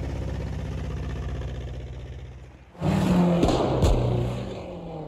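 Film sound of the flying Ford Anglia. Its small engine runs steadily, then nearly three seconds in a sudden loud rush of engine and wind begins as the car swoops past, with a falling whoosh.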